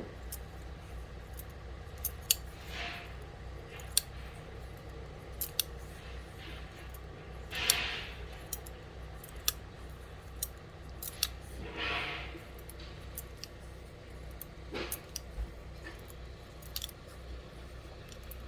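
Barber's haircutting scissors snipping hair in irregular, crisp clicks, with a couple of brief swishes in the middle, over a steady low hum.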